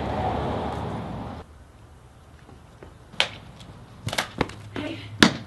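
A steady rushing noise that cuts off suddenly, then a handful of sharp plastic clicks and knocks from a toy lightsaber being handled and swung, the loudest near the end.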